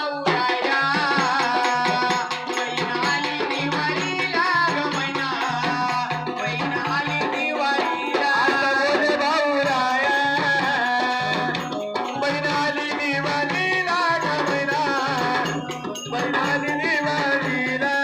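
Live Marathi devotional folk song: a singer's voice through the microphone, over an electronic keyboard melody and a steady hand-drum beat.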